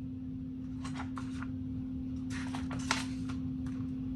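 Pages of a picture book rustling as they are handled and turned, in two short sweeps with a light tap near three seconds in, over a steady low hum.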